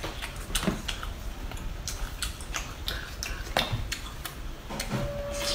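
Eating cooked lobster: irregular sharp clicks and small crackles of shell being handled and bitten, with wet mouth sounds. A steady single tone starts near the end.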